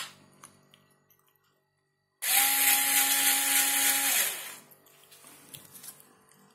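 Parkside PSSA 4 B2 cordless electric screwdriver's motor driving a Timemore Nano hand coffee grinder, a steady whine with a hum beneath. It starts abruptly about two seconds in, runs for about two seconds, then winds down and stops.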